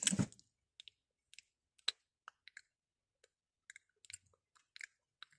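Faint, irregular small clicks close to the microphone, about a dozen spread over five seconds, after the tail of a word at the very start.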